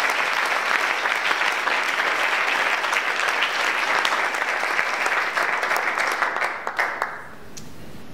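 Audience applauding, a dense patter of many hands clapping that thins to a few last claps and stops about seven seconds in.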